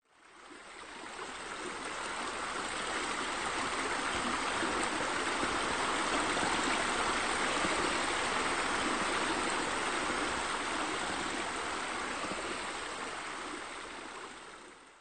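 Water falling and splashing steadily, like a pool's spillover waterfall, fading in over the first two seconds and stopping abruptly at the end.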